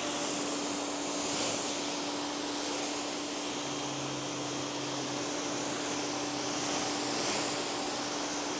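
ProFlow PM2000 electric pressure washer running with the trigger held, giving a pre-wash rinse: a steady motor hum under the hiss of the water jet spraying across a car's hood.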